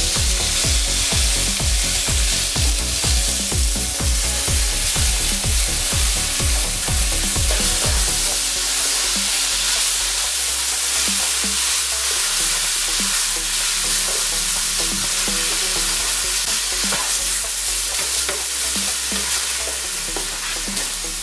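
Onion and spice masala sizzling in a non-stick frying pan while yoghurt is stirred through it with a spatula.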